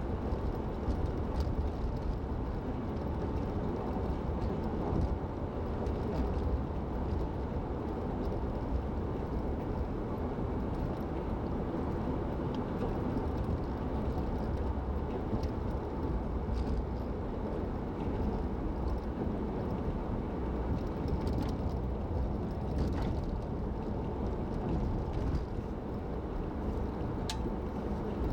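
Car cruising at about 50 mph on a highway: steady road and engine noise.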